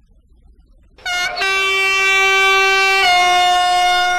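Diesel locomotive horn sound from an HO-scale model diesel locomotive. It begins about a second in with a brief stuttering toot, then runs on as one long, loud, steady blast whose pitch steps down slightly about three seconds in.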